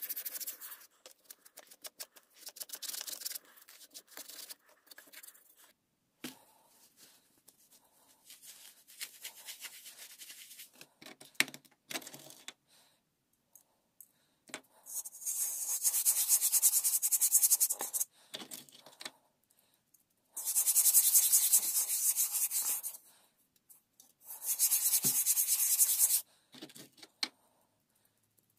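Hand rubbing over a painted steel helmet shell, working rust-coloured powder into the paint to age it. A dry, hissy scrubbing: light and broken at first, then three louder rubbing strokes of two to three seconds each in the second half.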